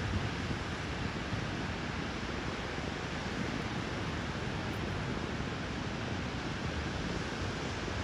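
Ocean surf breaking and washing up the beach, a steady rush, with wind buffeting the microphone.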